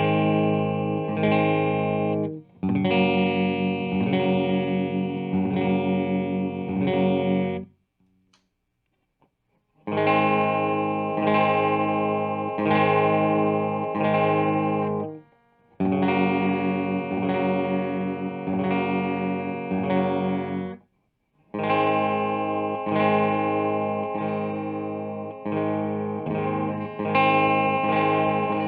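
Squier Classic Vibe Starcaster electric guitar played through a Marshall amp with some overdrive: full chords strummed and left ringing, in phrases of a few seconds. The playing stops for about two seconds roughly a third of the way in.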